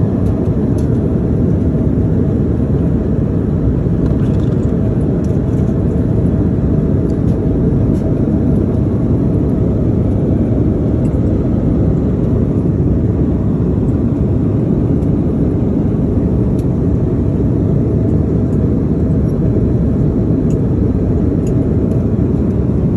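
Airliner cabin noise in flight: a steady low rush of engine and airflow noise that does not change.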